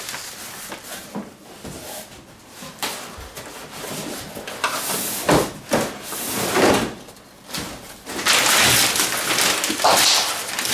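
Gift wrapping paper being torn off a cardboard box and crumpled, rustling and crinkling in irregular bursts, loudest near the end, with a few knocks as the box is handled.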